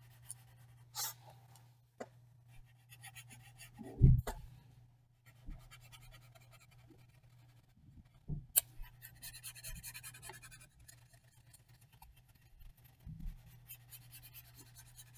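A graphite pencil's lead rubbed sideways over notebook paper, shading in short scratchy strokes that come in several spells, under a steady low hum. A dull thump about four seconds in is the loudest sound.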